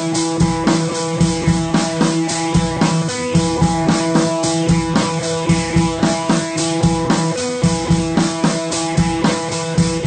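Background music with guitar and a steady drum beat.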